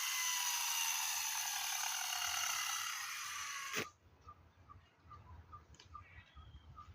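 Mitsuyama brush cutter's spinning head whirring with a hiss as it coasts down, its whine slowly falling in pitch. It stops suddenly with a click about four seconds in, leaving faint, evenly spaced ticks about three a second.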